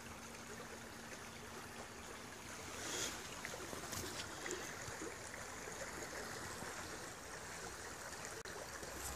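Shallow woodland river flowing steadily over riffles, an even rushing of water.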